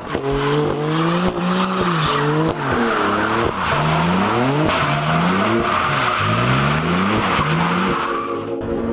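Car engine revving hard, its pitch climbing and falling again and again, with tyres squealing throughout; it fades out near the end.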